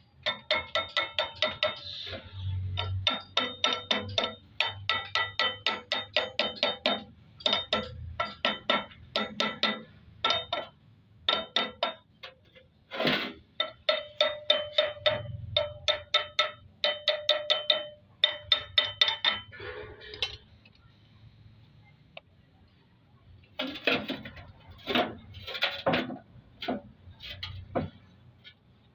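A hammer striking a metal part of a vintage VW engine in quick runs of about three blows a second, each blow ringing with a metallic tone. The blows stop for a few seconds and then resume for a few more, as a part is knocked into place.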